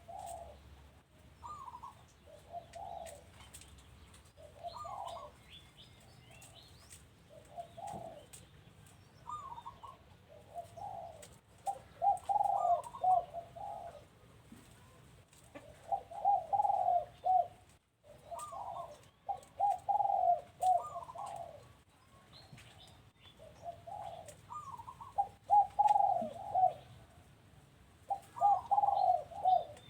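Doves cooing repeatedly, phrase after phrase of quick rolling coo notes every couple of seconds, louder from about twelve seconds in, with faint chirps of small birds over them.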